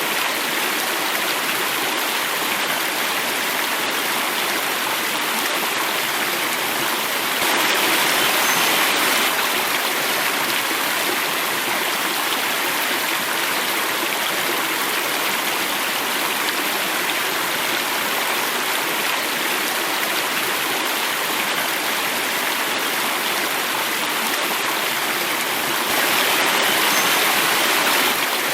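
Running water of a stream flowing and falling, a steady rushing hiss that swells slightly twice, about eight seconds in and again near the end.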